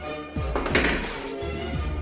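Background music with a heavy, regular beat, and one sharp noisy hit a little under a second in.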